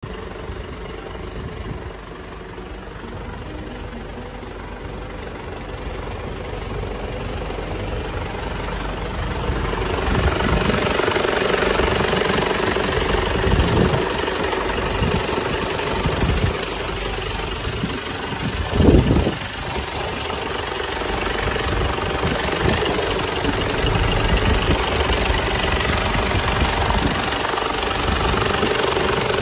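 Mitsubishi Fuso truck's diesel engine idling steadily, growing louder about a third of the way through as the microphone comes over the engine bay. A brief louder thump about two-thirds of the way in.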